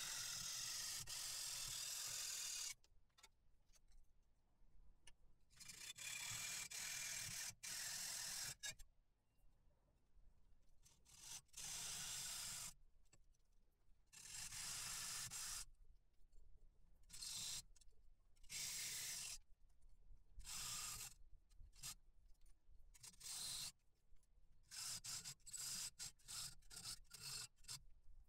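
Hand hacksaw cutting a blank clamped in a small bench vise, in bouts of sawing a few seconds long broken by quiet pauses. The bursts grow shorter and choppier near the end.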